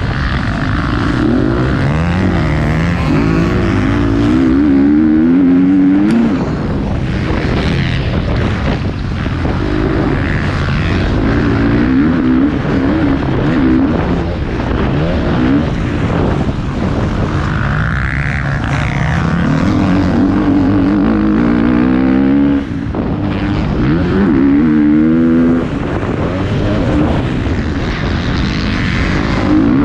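Motocross bike engine heard up close from the bike, revving hard and climbing in pitch under throttle, then dropping back, over and over as it is ridden round a dirt track. It cuts off sharply for a moment about 23 seconds in.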